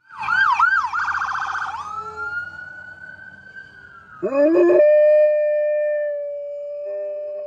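A siren warbling and then wailing. About four seconds in, a dog howls along with it, rising into one long held note.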